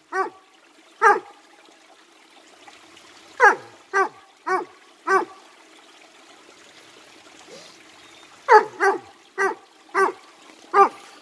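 Dog barking: about eleven short barks that fall in pitch, in two bunches, over the faint trickle of stream water.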